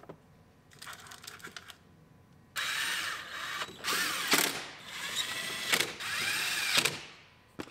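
Cordless drill/driver running bolts into a truck's dash to fasten the lower glove box, in several short runs of the motor whose whine rises and falls, with quieter handling clicks before it starts.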